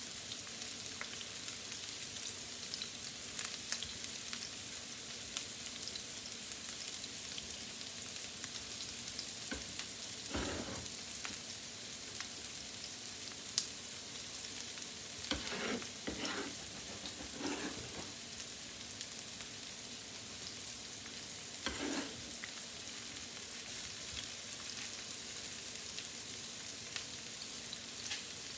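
Onions and garlic frying in olive oil in a pan: a steady sizzle with fine crackles. A few brief stirring sounds come through, about ten seconds in, twice between fifteen and eighteen seconds, and again at about twenty-two seconds.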